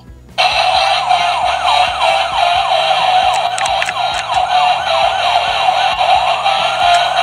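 Electronic siren sound effect from a battery-powered toy blaster's small speaker: a fast, tinny warbling wail that starts suddenly about half a second in and sweeps up and down about three times a second.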